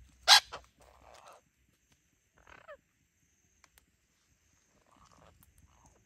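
Parrots calling: a loud, sharp shriek about a third of a second in, a shorter one right after, then a harsher rasping call and, a couple of seconds in, a brief squawk that bends in pitch.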